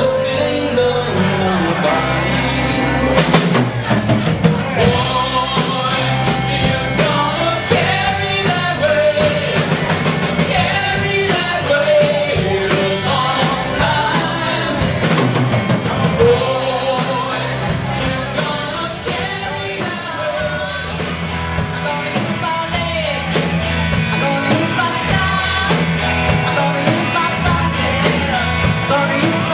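Live rock band playing a song: a woman's voice singing over drum kit with steady cymbal strokes, electric guitars and keyboard.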